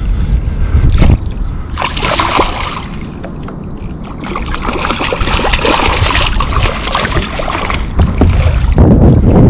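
Water splashing and sloshing around a kayak, with wind buffeting the microphone in heavy gusts at the start and again near the end.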